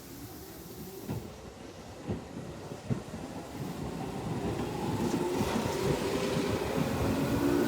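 Tobu 10030 series electric train pulling away from the station and gathering speed. The wheels click over the rail joints about once a second, then the traction motors' whine rises in pitch and grows louder as it accelerates.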